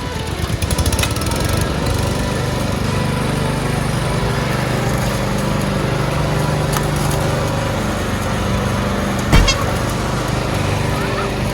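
Petrol lawn mower engine sputtering up to speed in the first second or two, then running steadily, with one sharp knock about nine seconds in.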